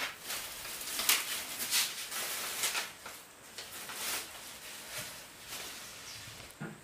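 Thin plastic bag crinkling and rustling as it is pulled off the wall and a plastic sachet is taken out of it. It comes in quick crackling bursts over the first three seconds or so, then softer handling noises.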